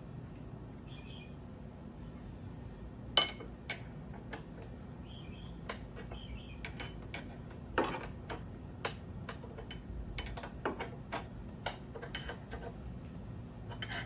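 Irregular sharp metal clicks of a wrench snugging up a brake-hose banjo bolt, starting about three seconds in and coming roughly once or twice a second.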